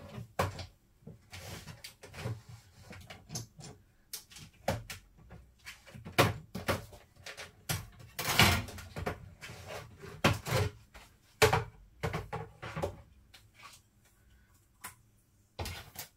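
Irregular clicks, taps and paper rustles of hands working with cardstock and cutting tools while small Christmas tree shapes are cut out. There is a longer scraping rustle a little past the middle, and a short lull near the end.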